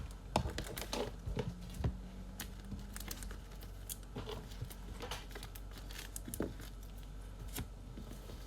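Trading cards and plastic packaging being handled: irregular crinkling and rustling with many light clicks and taps as cards are sorted and packed.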